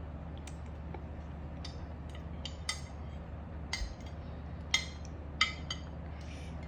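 Cutlery clinking against dishes: about nine short, sharp clinks at irregular intervals, the loudest two just before and about halfway through the second half, over a steady low hum.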